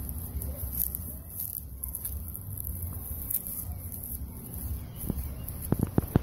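Low, steady rumble and faint hiss of an outdoor phone recording with handling noise, broken about five seconds in by four short sharp taps, the plastic ruler knocking against the table or the watermelon as it is measured.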